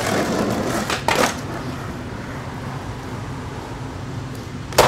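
Skateboard urethane wheels rolling on concrete, a steady rumble with a knock about a second in. Near the end comes one sharp, loud clack as the board comes down off a concrete ledge.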